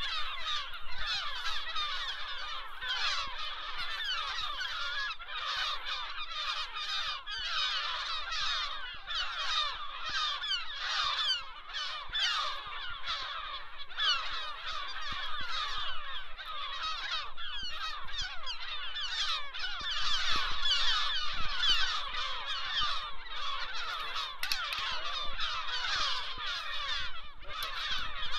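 A black-headed gull colony calling overhead: a dense, continuous din of many overlapping harsh calls, swelling about two-thirds of the way through. The birds are up off their nests and alarm-calling at people walking through the colony.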